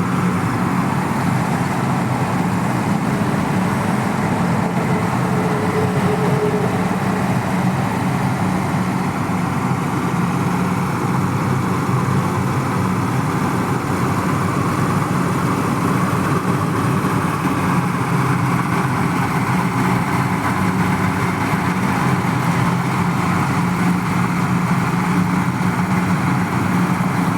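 Diesel engine of a Mahindra Arjun 4WD tractor running steadily at a constant speed, with a low even drone and no change in revs.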